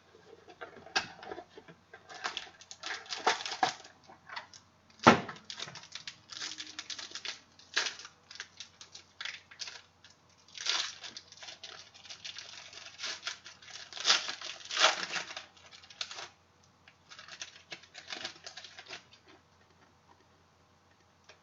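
Rustling and crinkling of clear plastic card sleeves and holders as trading cards are handled, in irregular bursts, with one sharp tap about five seconds in.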